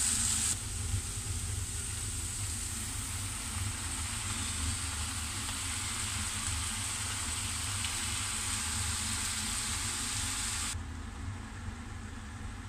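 Tofu and water spinach frying in hot oil in a pan: a steady sizzle that cuts off abruptly near the end, leaving a low steady hum.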